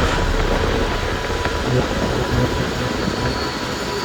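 Vintage passenger train running on the rails: a steady rumble with a few faint clicks, and a thin high wheel squeal setting in near the end.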